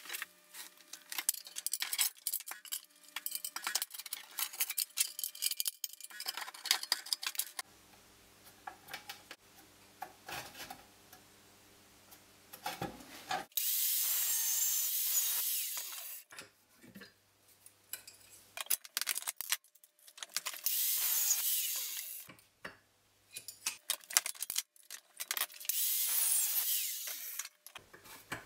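Angle grinder with a cut-off disc cutting through steel nails clamped in a bench vise: three short cuts of two to three seconds each, about halfway in, two-thirds in and near the end. Before them, clicking and knocking of metal parts and tools being handled.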